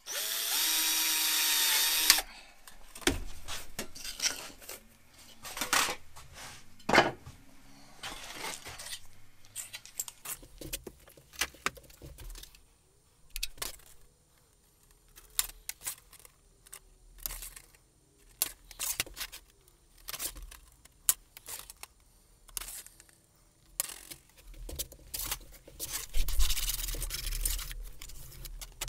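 A cordless drill runs for about two seconds, drilling a small corner relief hole through thin aluminium sheet. It is followed by a long series of short, sharp snips and clicks from hand snips cutting the aluminium. Near the end comes a louder scraping and rattling as the sheet is handled on the steel bench.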